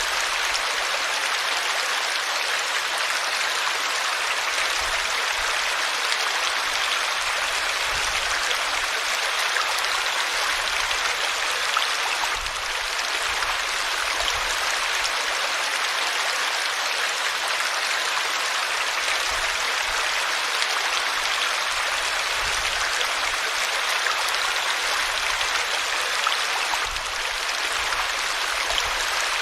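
River water flowing over rocks: a steady, even rush of white water with no letup.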